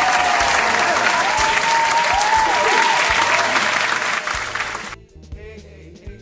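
Applause with a few cheers for about five seconds, over background music; the applause cuts off suddenly, leaving the music playing softly.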